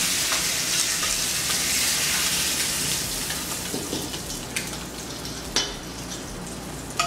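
Olive oil sizzling in a frying pan around a pan-fried whole snapper as it is lifted out with tongs. The sizzle fades after about three seconds, followed by three sharp clicks of metal tongs against a steel bowl.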